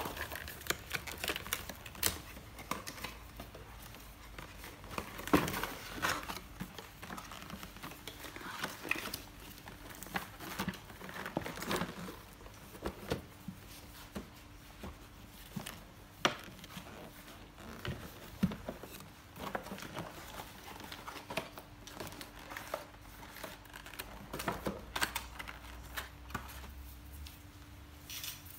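Cardboard box and paper packaging handled while unpacking: irregular rustling and crinkling of paper and card, with scattered taps and knocks as a hard carry case and a foam grip are taken out and set down.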